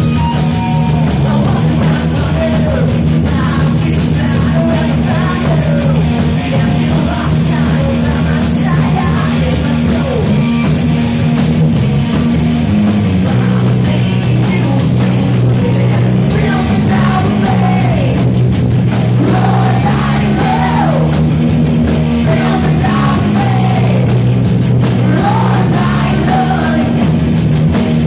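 Rock band playing loud, with a sung vocal over a full band and a bass line moving between a few notes.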